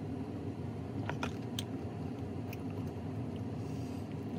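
A man drinking moonshine cherry juice from a plastic cup and chewing the cherry: a few soft mouth clicks, about a second in and again near the middle, over a steady low background hum.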